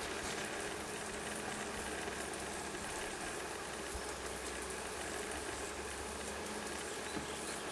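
Honey bees buzzing around an open hive, a steady, even hum of many bees.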